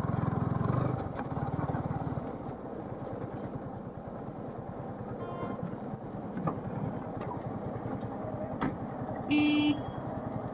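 Motorcycle engine running steadily while riding. A loud horn blast lasting about half a second sounds near the end, with a fainter short horn about halfway through.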